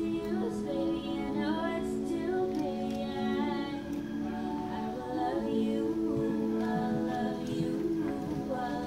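Wedding processional music: a melody line moving over steady, held low notes.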